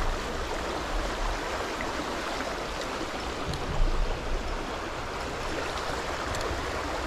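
Shallow river riffle running over stones: a steady, even rush of water. A brief low thump stands out about halfway through.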